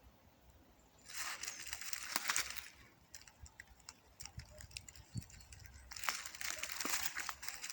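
Dry forest litter rustling and crunching in two bursts of a second or two each, with small crackles between them.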